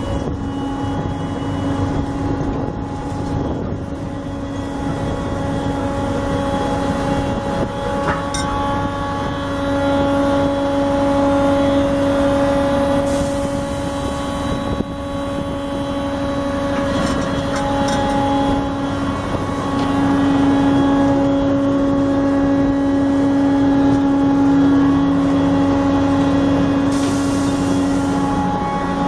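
Wirtgen 1000VC cold milling machine's diesel engine running steadily at constant speed, a continuous drone with a few faint clicks.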